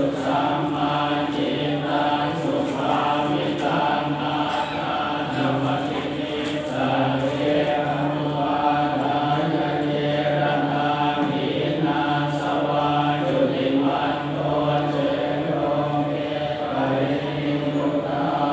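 Thai Buddhist chanting: a steady, near-monotone recitation held on one low pitch, in short phrases that run on without pause.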